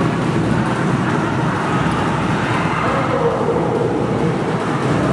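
Spectators at a futsal match making a loud, steady crowd din, with individual shouts rising out of it.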